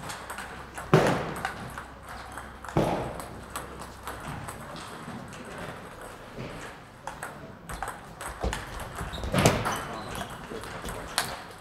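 Table tennis balls clicking off bats and tables, with several rallies going at once in a large, echoing hall. Three louder sudden sounds stand out, about one, three and nine and a half seconds in.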